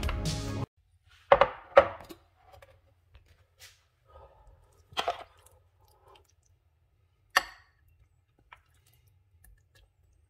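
Background music that cuts off under a second in, followed by a few sharp clinks and knocks of metal spoons against the salad bowl and glass serving plate as dressed salad is tossed and served, with faint softer sounds between them.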